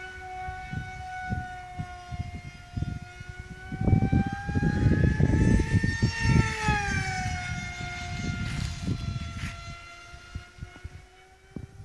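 Multiplex Funjet Ultra's electric motor and pusher propeller whining at high speed. The whine grows louder and rises in pitch, then drops after about six seconds as the plane passes. Wind buffets the microphone, heaviest in the middle.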